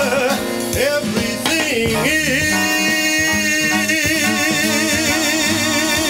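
A song: a singer holds one long note with vibrato over instrumental backing.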